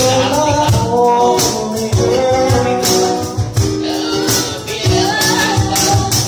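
Live acoustic band: a woman sings into a microphone over hand percussion that keeps a steady beat, with shaker- or tambourine-like strokes and a low thump on the beat.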